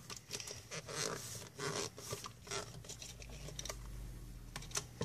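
Thin plastic drink bottles crinkling and scraping in the hands as the two bottle halves are pushed and twisted together at their screw caps: a run of short crackles and clicks that thins out over the last two seconds.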